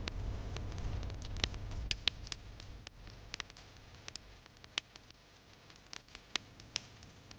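Wood fire in a fireplace crackling, with irregular sharp pops and snaps. A low rumble fades out over the first few seconds.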